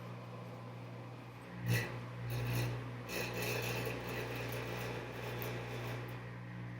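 Washing machine during its first rinse: a steady low hum, then from about two seconds in a spell of rubbing and swishing as the drum turns the wet laundry, easing off near the end.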